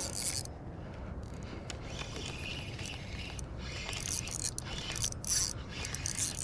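Fishing reel being cranked as a hooked bonito is reeled in: a gritty, whirring winding noise that comes and goes in spells, over a low rumble of wind and water.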